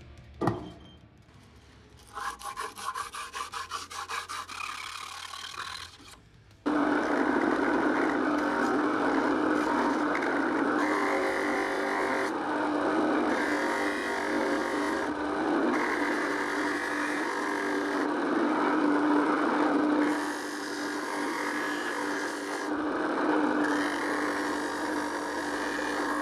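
A bench grinder running steadily while a steel knife blade (chainsaw-chain and file Damascus) is held against its wheel, a continuous grinding noise with a steady motor hum. Before it starts, about six seconds in, there is a single click and a few seconds of fast ticking.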